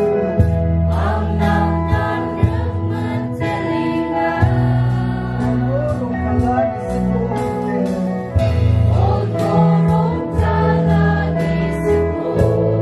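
A worship team sings a praise song together over an acoustic guitar. Low chords are held and change every second or two, with short percussion strikes running through.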